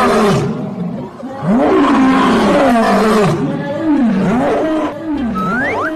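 Loud growling animal roar sound effect, starting with a sudden burst and going on in a series of rising-and-falling growls, with a rising whistle-like glide near the end.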